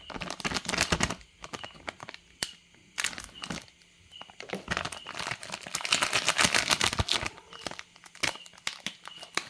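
Plastic packet of Bento squid snack crinkling and being torn open by hand, a run of sharp crackles that is busiest about five to seven seconds in.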